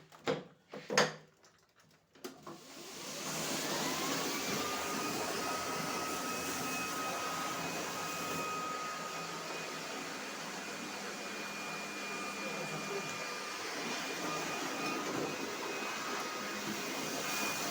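A few sharp clicks, then about two seconds in the Kärcher 40/12 C battery scrubber-drier starts up. Its motor whine rises over a second or two and settles into a steady vacuum-like running noise as it scrubs the floor.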